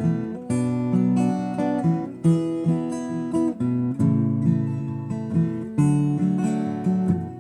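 Acoustic guitar strumming chords in a steady rhythm with changing bass notes: the instrumental introduction of a song, before the singing comes in.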